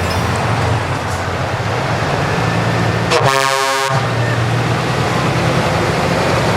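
A vehicle running with a steady engine drone, broken once about three seconds in by a short horn toot of under a second.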